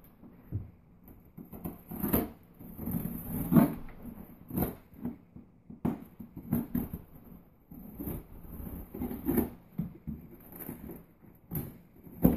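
A small knife slicing packing tape along the seams of a cardboard shipping box, in a run of uneven scraping strokes with rustling of the cardboard.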